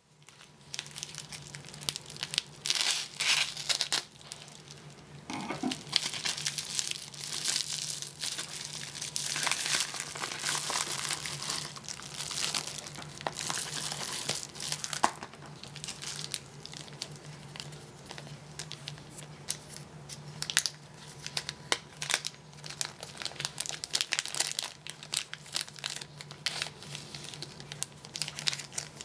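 Plastic mailer envelope being cut open, torn and crinkled by hand as the contents are pulled out, then a small plastic zip-lock bag rustling; irregular crackles and rustles throughout, busiest in the first half.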